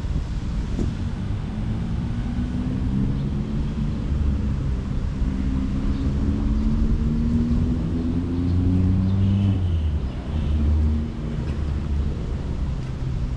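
A motor engine running close by, a low hum whose pitch rises slowly, over a steady low rumble; it is loudest about nine to eleven seconds in.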